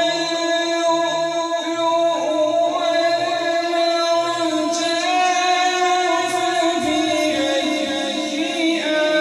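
A man reciting the Quran in the melodic, chanted style of tilawat, holding long drawn-out notes. His voice steps down in pitch near the end.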